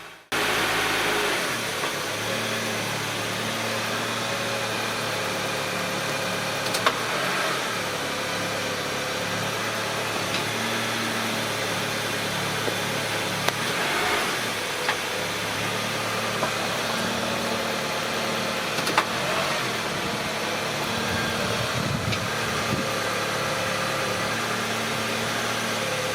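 Car engine running steadily, with a constant low hum and a few light clicks.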